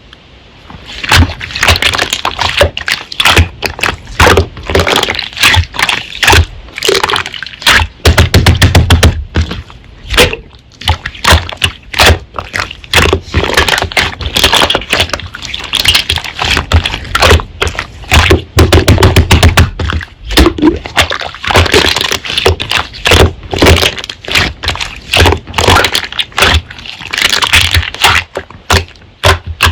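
Slime being squished and pressed by hand, with rapid clicking and popping of trapped air and low squelching thuds in a few clusters.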